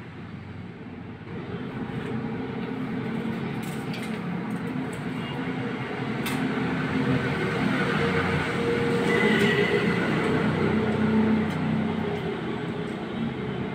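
An engine running steadily, growing louder about halfway through and easing off near the end, with a few light clicks.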